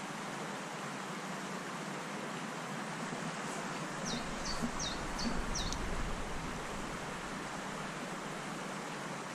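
Steady rush of a small stream's flowing water. About four seconds in, a bird gives four quick, high chirps, while a brief low rumble rises and fades.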